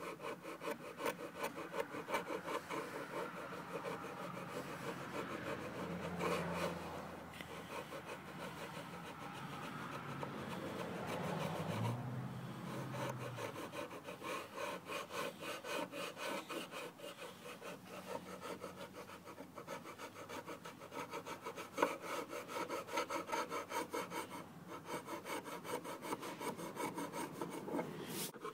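Sharp wood chisel scraping and paring cured thick cyanoacrylate (super glue) off the end grain of a wooden workpiece, in quick, even, repeated strokes. This clears the excess glue from an end-check repair before final sanding.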